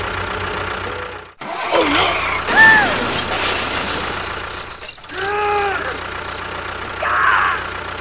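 Tractor engine sound running steadily, cut off briefly twice, with two short pitched tones that rise and then fall, about two and a half and five seconds in.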